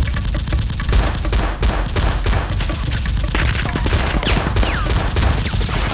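Sustained rapid automatic gunfire, a continuous fusillade of shots, with several short falling whines between them.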